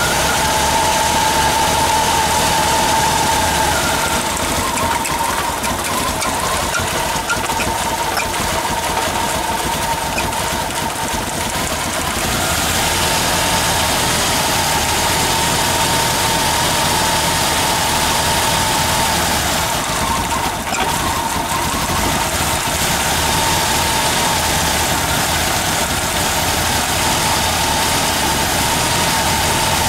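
AMC 258 straight-six engine in a 4x4 AMC Eagle idling steadily and running horribly, with a steady high whine over the engine noise.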